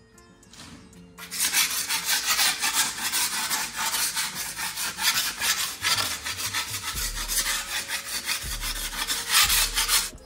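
Old paint being scraped off a house wall by hand, a harsh rasping in quick repeated strokes that starts about a second in and stops suddenly at the end.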